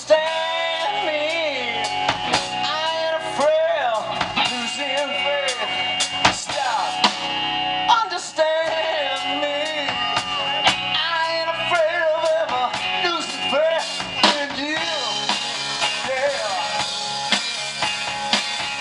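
Live rock band playing: electric guitar with a bending, wavering lead line over bass guitar and a drum kit, with regular snare and bass-drum hits and cymbals.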